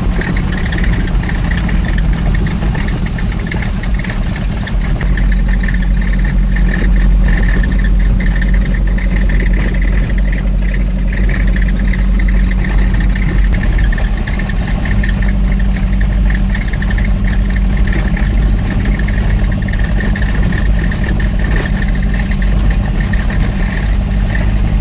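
Car driving on a gravel road, heard from inside the cabin: a steady low engine and road rumble, with tyres crackling and rattling over the loose gravel.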